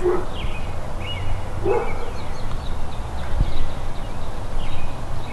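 A dog barking a few times, with separate barks at the start and about a second and a half later.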